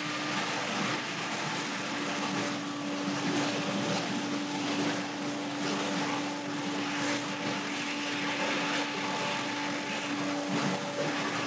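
Billy Goat Hurricane X3000 stand-on leaf blower running steadily, its Vanguard V-Twin engine humming under the rush of air from the blower as it drives leaves across the grass.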